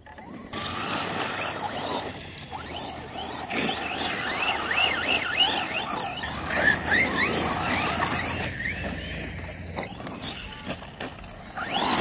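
Electric RC trucks driven over loose gravel. Their motors whine, the pitch sweeping up and down quickly, over and over, as the throttle is worked, over a wash of tyre and gravel noise.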